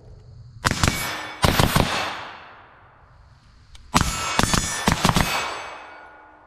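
Suppressed FN SCAR 16S rifle in 5.56×45 firing two quick strings at steel plate targets, each hit ringing the steel. One short string comes about half a second in and a longer rapid one about four seconds in, each followed by fading ringing.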